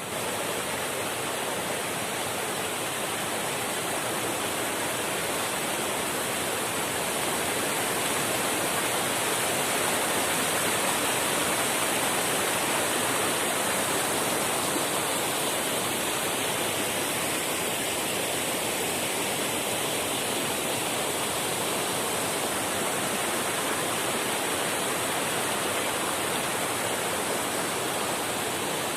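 Leshnichki waterfall: water falling with a steady, even rush.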